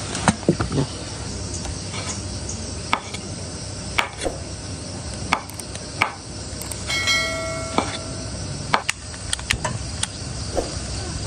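Kitchen knife chopping mushrooms on a wooden cutting board: sharp single taps about a second apart over a steady background hiss, with a brief pitched tone partway through.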